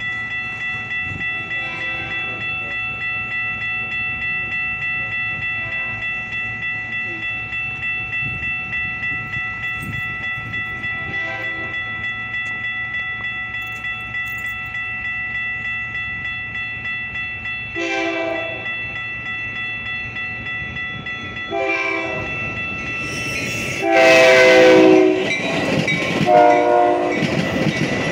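Railroad crossing bell ringing in a steady quick rhythm while an approaching Metra commuter train sounds its horn in a series of blasts, faint at first and growing louder, the longest and loudest about 24 seconds in. The rumble of the train rises near the end as it reaches the crossing.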